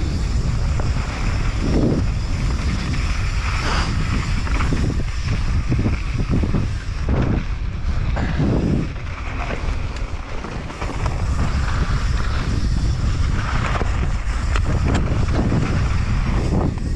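Wind rushing over the microphone of a mountain bike rider at speed, over the rumble of tyres on a loose dirt trail, with irregular knocks and rattles as the bike goes over bumps.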